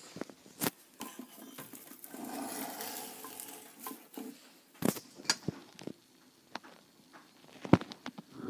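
Handling noise: scattered small clicks and knocks, with a stretch of rustling from about two seconds in to about three and a half.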